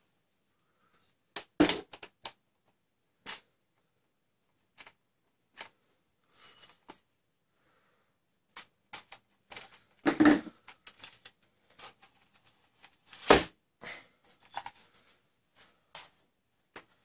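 Scattered clicks and knocks of a metal barrel kit and plastic foam-dart blaster parts being handled and forced together. Louder knocks come about two seconds in and about ten seconds in, and the loudest about thirteen seconds in.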